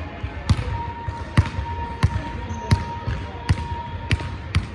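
Basketball being dribbled on a hardwood gym floor, a sharp bounce about every two-thirds of a second, about seven bounces in all.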